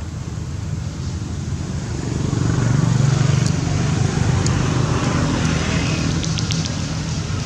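A passing road vehicle's engine rumble that swells about two seconds in and slowly eases, over a steady low traffic rumble.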